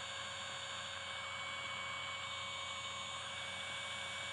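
Car starter motor spinning steadily under an electric speed controller, drawing about 20 amps: a steady mechanical hum with a few high, steady whining tones.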